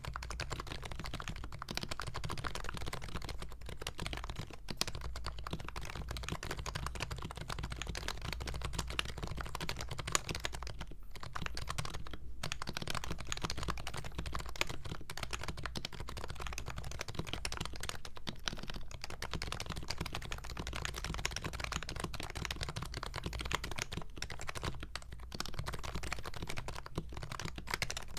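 Fast continuous typing on an HHKB Professional 2 Topre keyboard with lubed, silenced sliders and BKE Redux Ultralight domes: a dense run of soft, muted keystrokes, with a couple of brief pauses.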